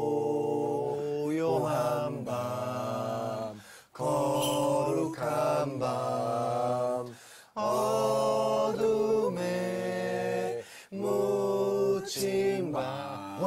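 Male voices singing a cappella in harmony, holding long chords in phrases with short breaks every three to four seconds.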